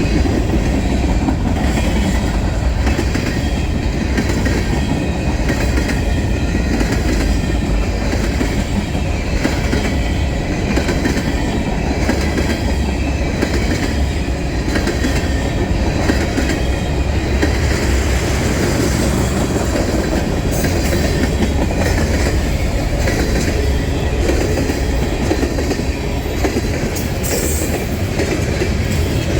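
Freight train cars rolling past, steel wheels clacking over the rail joints in a steady, regular rhythm.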